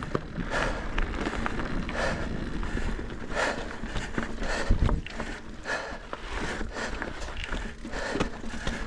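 Mountain bike rolling over a rough dirt trail: tyre and frame rattle with many small clicks, wind on the microphone, and the rider's heavy breathing surging about every second and a half.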